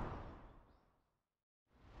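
Outdoor ambience with a low rumbling hiss fading out to complete silence, then a low rumble fading back in near the end.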